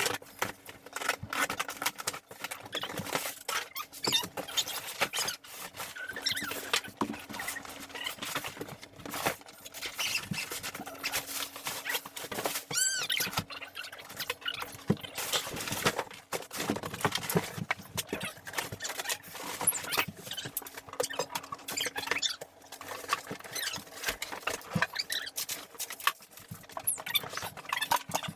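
Packaging being handled and unwrapped: a dense run of rustling, crinkling and clicking, with a few short squeaks.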